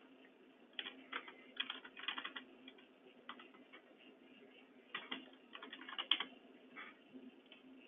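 Computer keyboard typing, a few keystrokes at a time with short pauses between the bursts.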